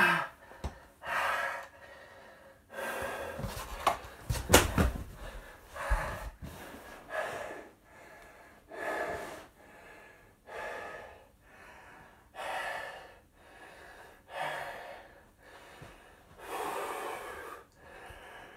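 A man breathing hard from exertion while holding a wall sit, with a long, heavy breath about every two seconds. A few knocks and bumps come about four to six seconds in.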